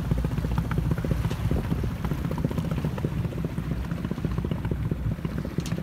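A small sailing yacht's outboard motor running steadily at slow harbour speed, a rapid even low pulsing.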